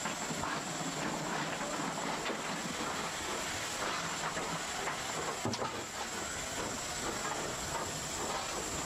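Steady hiss of steam in a steam locomotive's cab, with scattered light clanks and one sharper knock about five and a half seconds in.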